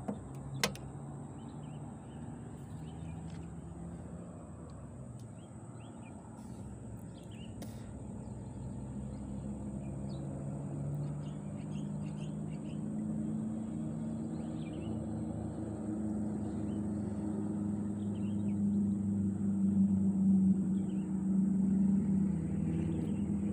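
A motor engine running steadily, growing gradually louder as it draws closer. A single sharp click sounds under a second in.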